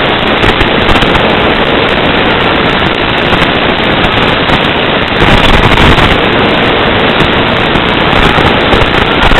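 Loud, steady hiss with a fine crackle running through it: static on the audio channel of an analog FPV video downlink.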